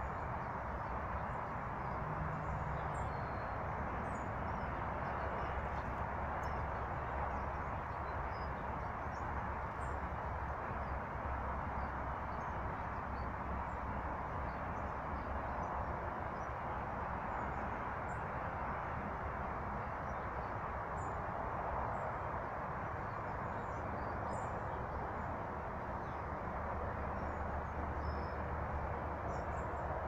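Steady outdoor rushing noise, with faint, short, high-pitched calls of small birds scattered throughout.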